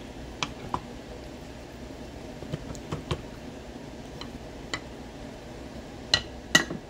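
Kitchen utensils clicking and clinking against a slow cooker pot: scattered light clicks, with two sharper clinks near the end.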